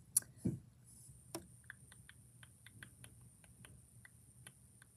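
Light, evenly spaced ticking, about three or four ticks a second, after two sharper clicks and a soft bump in the first second and a half.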